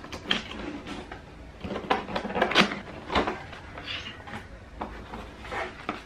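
Cardboard packaging and paper inserts being handled: irregular scrapes, rustles and light knocks as boxes are opened and cards pulled out.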